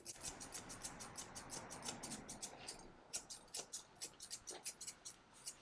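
Blending shears snipping the fur of a cat's paw in quick, faint runs of about five snips a second, with a short pause about three seconds in.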